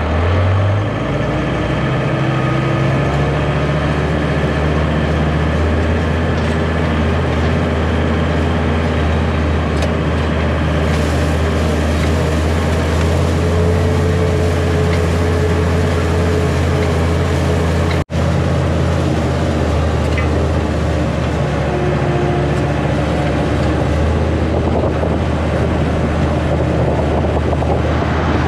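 John Deere 5325 tractor's diesel engine running steadily at half throttle in road gear while pulling a hay rake, heard from the operator's seat. The sound drops out for an instant about two-thirds of the way through.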